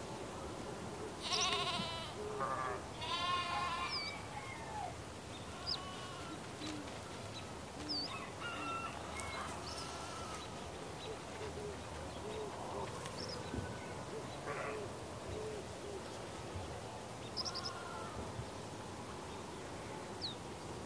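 Farm animals bleating, a few wavering calls that are loudest in the first few seconds and come fainter and more spread out later, with short bird chirps scattered throughout.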